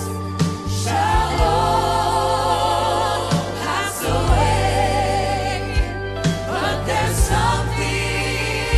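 Live gospel worship music: singing with a wide vibrato over organ and a steady bass line, with percussive hits now and then.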